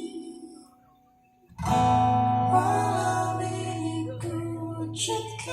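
Acoustic guitar: a chord rings out and fades almost to silence, then a new chord is strummed about one and a half seconds in and rings on.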